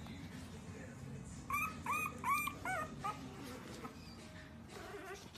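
Bulldog puppy whimpering: a quick run of about five short, high cries starting about a second and a half in, the last ones falling in pitch.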